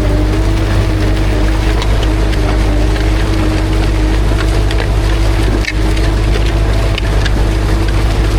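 Ursus C-360 tractor's four-cylinder diesel engine running steadily under load while pulling a disc harrow, with scattered clicks and rattles from the discs working the soil. A single short knock comes a little over halfway through.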